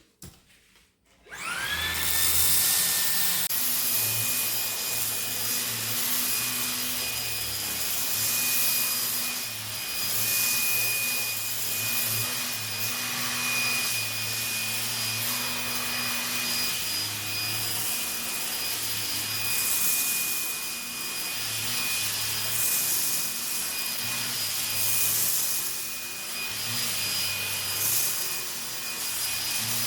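Dreame V11 cordless stick vacuum with its 125,000 RPM motor and mini motorized brush head spinning up to turbo mode about a second and a half in, its whine rising quickly. It then runs steadily with a high whine and rushing airflow. A lower rumble from the brush roller on the upholstery comes and goes as the head is pushed back and forth.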